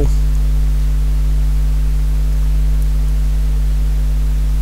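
Steady electrical hum with a faint hiss, constant throughout: the background noise of the narration's recording chain.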